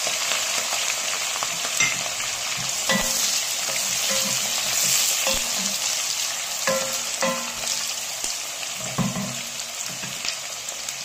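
Sliced onions and green chillies sizzling in hot oil in a nonstick pot, stirred with a wooden spatula that knocks against the pot every second or two. The sizzle slowly dies down.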